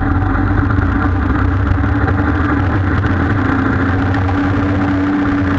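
Off-road vehicle's engine running steadily at low speed, heard close up from on top of the bonnet. Its pitch rises slightly about three and a half seconds in.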